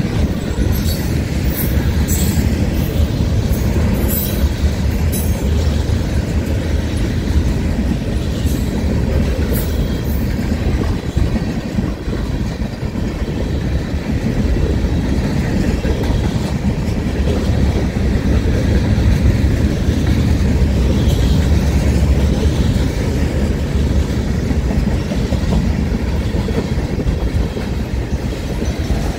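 Freight train of tank cars and covered hoppers rolling past at a grade crossing: a loud, steady low rumble of steel wheels on rail, with scattered sharp clicks in the first few seconds.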